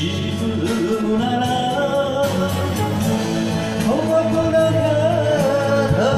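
A man singing an enka song into a microphone over a karaoke backing track. About four seconds in his voice slides up into a long held note, and it slides up again near the end.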